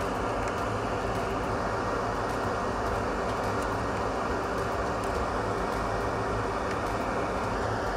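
Steady fan-like background noise, an even hiss with a low hum, with no distinct events.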